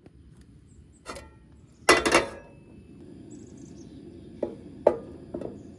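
Coleman camp stove burner being lit with a long-reach lighter: a faint click about a second in, then a sudden loud rush as the gas catches, and a steady low rush of the burner flame after it. Near the end a fork clinks a few times against the metal frying pan while pushing butter around.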